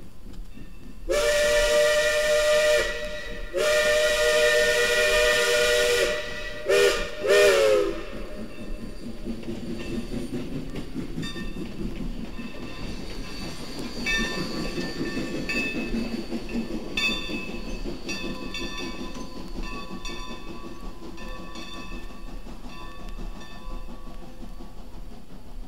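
Steam locomotive whistle, a 2-8-0, sounding a chord in four blasts, two long and then two short, as the engine moves off. After that, steam hissing and the locomotive working with recurring exhaust beats.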